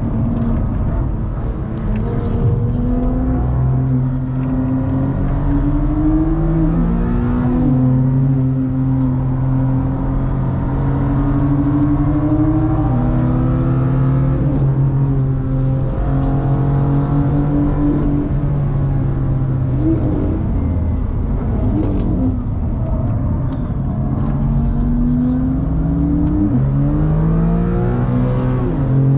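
BMW car's engine heard from inside the cabin at speed on a race track. It holds a steady note for stretches and climbs under acceleration, with sharp drops in pitch at gear changes a few times, over constant tyre and road rumble.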